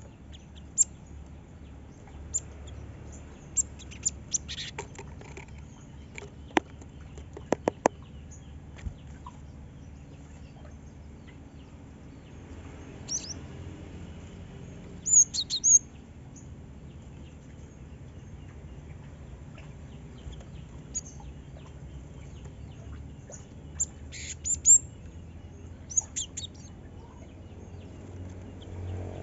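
Cinereous tit (gelatik batu) giving short, sharp high chirps in scattered bursts, with the loudest clusters about halfway through and again near the end. A few sharp clicks come between calls early on.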